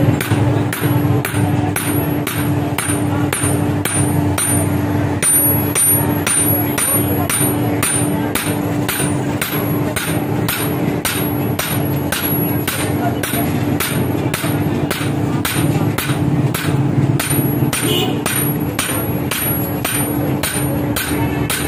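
Blacksmith's hammer striking steel on an anvil in a steady rhythm, about two blows a second, forging a sickle blade. A steady low drone runs underneath.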